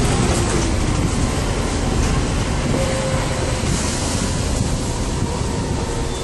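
Cabin noise of a Volvo hybrid city bus under way: a steady low rumble with faint whining tones that slide in pitch.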